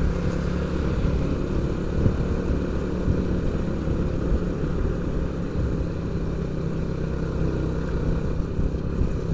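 Motorcycle engine running steadily while riding along, with road and wind noise.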